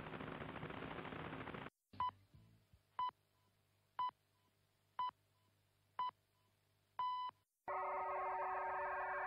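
Three received radio signals in a row. First the Loran-C navigation signal as a dense buzzing noise, which cuts off just before 2 seconds in. Then a Spanish commercial station's time signal: six short high beeps one second apart, the sixth one longer and marking the exact hour. Near the end comes the VFT BR-6028 voice-frequency telegraphy signal, a dense chord of many steady tones.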